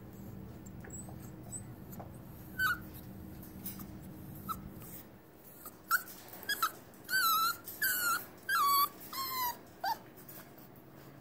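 Six-week-old Brittany puppy whining: short high-pitched whines, coming thick and fast from about six seconds in, the longer ones dropping in pitch at their ends.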